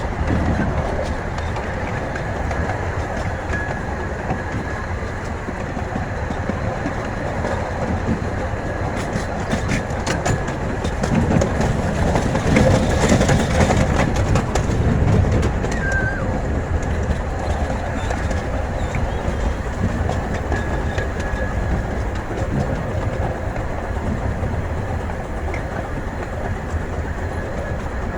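Steam train cars running along the track, a steady rumble and clatter of wheels on the rails, growing louder for a few seconds around the middle.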